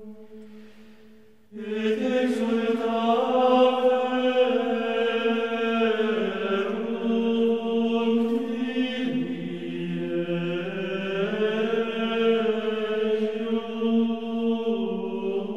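A choir chanting slow sacred chant in long held notes that step up and down in pitch. A held note fades out, then a new phrase begins about a second and a half in and carries on without a break.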